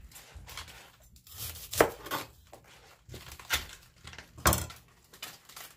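Chef's knife cutting through bok choy stems on a plastic cutting board: several sharp knocks of the blade on the board, the loudest nearly two seconds in and about four and a half seconds in.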